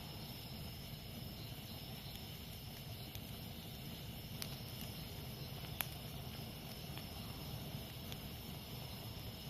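A wood campfire burning with a steady low rustle and a few sharp crackling pops, the loudest a little before six seconds in. Jungle insects keep up a steady high buzz throughout.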